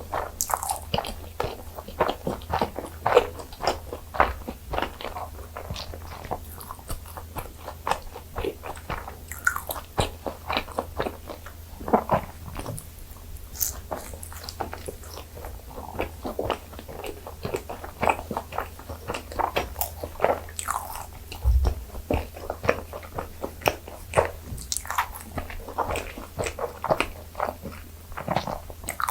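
Close-miked eating: repeated bites and steady chewing of butter-grilled gijeongtteok, Korean fermented rice cakes.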